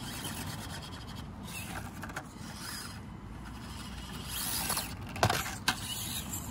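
Axial SCX24 1/24 crawler on its stock brushed motor, the motor and gearbox running as the truck crawls over rock with its tyres scraping and grinding. There are two sharp knocks about five seconds in, as the truck comes down off the rock.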